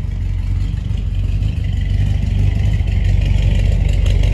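1983 Chevy Silverado's crate engine idling through dual exhaust with short glass-pack mufflers, a low, throaty exhaust note that gets slightly louder. The engine is still cold, so it sounds fine: the heat-related rattle has not started yet.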